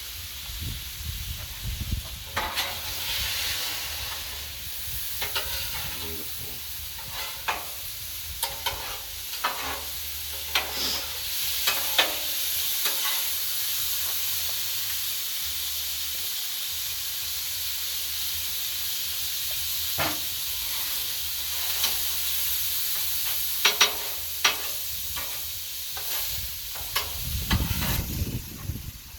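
Chicken and pork chops sizzling on a Blackstone steel flat-top griddle, with repeated sharp scrapes and taps of a metal utensil on the griddle surface.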